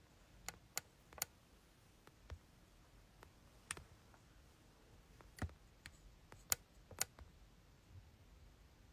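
Faint, scattered clicks at irregular intervals, about eight in all, over a faint room hum; the loudest comes about six and a half seconds in.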